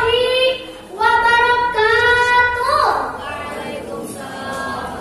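A young girl singing into a microphone: two long phrases of held, gently bending notes, the second ending about three seconds in with a falling slide, after which the sound is quieter.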